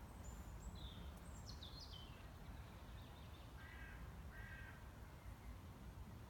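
Faint outdoor birdsong: a few high, quick, falling chirps in the first two seconds, then two short, harsher calls about four seconds in, over a low steady rumble.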